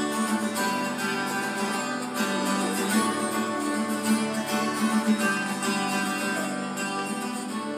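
Acoustic guitar strummed steadily, the instrumental introduction of a song before the vocals come in.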